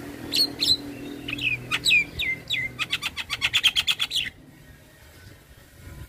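Javan myna singing: a string of about six falling whistles, then a fast rattling run of repeated notes that cuts off suddenly a little past four seconds in.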